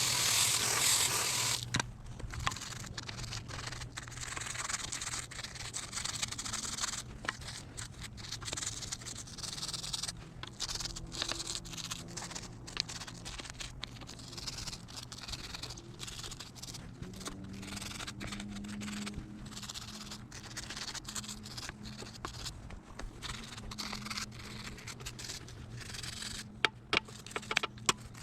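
Stiff brush scrubbing a dirt bike frame in short, irregular strokes, after a louder rush of noise in the first second and a half.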